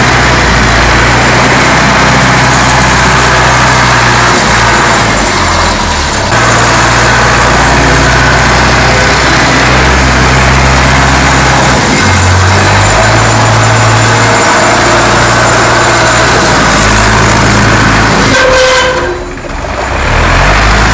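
Red Zetor farm tractor's diesel engine running loudly as the tractor drives and turns through snow, its pitch stepping up and down several times. Near the end the sound drops away for about a second, then comes back.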